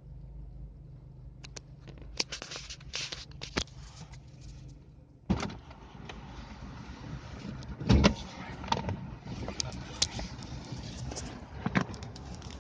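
Nissan Almera G15 engine running, a steady low hum with irregular knocks and clicks over it; the loudest knock comes about eight seconds in. The knock is the engine noise the owner is investigating.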